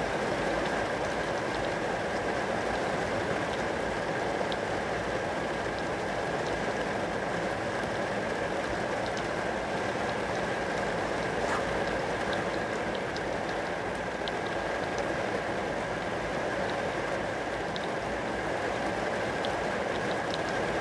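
Steady rain falling on glass, a continuous patter with individual drops ticking here and there.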